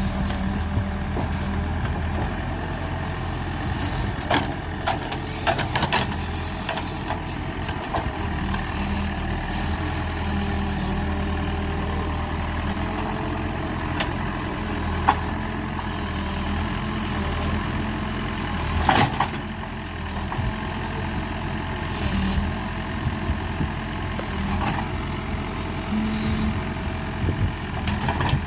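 A heavy diesel machine's engine running steadily, with scattered knocks over it; the sharpest knock comes a little past halfway and a cluster follows a few seconds later.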